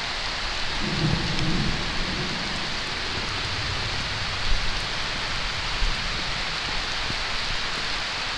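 Heavy rain pouring steadily, an even hiss of drops. A brief low rumble comes about a second in, and a couple of soft thumps fall near the middle.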